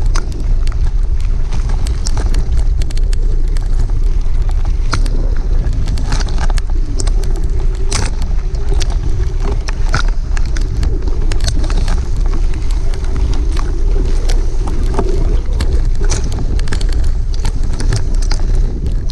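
Ride noise from a cargo bike rolling along a rough track through tall grass. A steady low wind rumble buffets the handlebar camera's microphone, and frequent irregular clicks and knocks come through as the bike jolts and grass brushes past.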